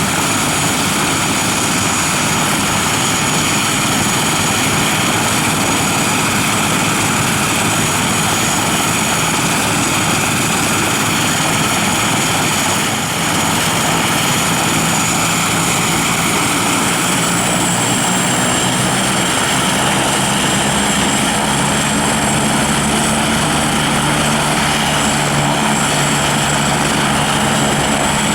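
Eurocopter-Kawasaki EC-145 helicopter's twin turboshaft engines and main rotor running steadily at close range, with a high turbine whine over the rotor noise. A lower hum grows in about two-thirds of the way through.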